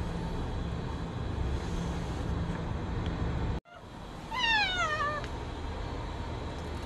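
A cat meowing once, about four seconds in: one drawn-out meow that wavers and falls in pitch, over a steady low rumble.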